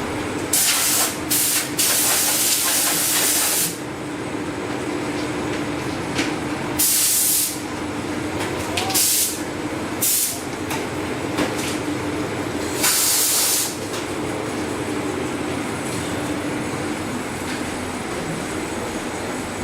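Repeated short hisses of compressed air, about seven in all, the longest near the start lasting over a second, over a steady machine hum on a tablet assembly floor.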